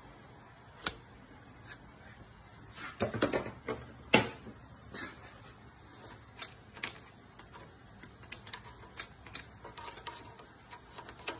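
A small brush scrubbing, then a small screwdriver picking and scraping around the base of a lawn mower engine's dipstick tube, clearing debris: scattered sharp clicks and taps of metal on the engine casting, loudest in a cluster about three to four seconds in.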